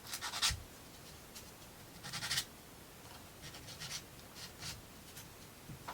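Thin laser-cut plywood model pieces scraping and rubbing against each other as they are handled and fitted, in a few short bursts.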